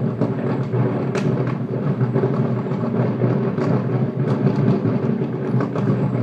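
Rapid barrage of distant aerial firework shells bursting over each other, merging into a continuous booming rumble with sharper cracks standing out every so often.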